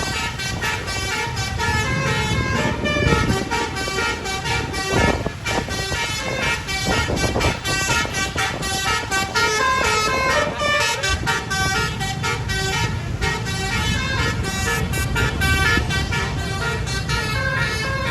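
Bus telolet horn, a set of musical air-horn trumpets, playing a rapid stepping melody over the low rumble of the bus engine.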